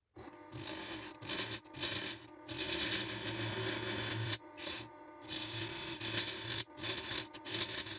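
Wood lathe running with a steady low hum while a gouge cuts the spinning wild olive bowl blank, the cutting noise coming in bouts of a second or two with short breaks between passes.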